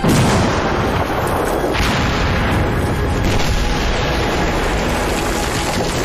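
An explosion: a sudden loud blast, followed by a long rumble that keeps going, with a fresh burst of crackling noise about two seconds in.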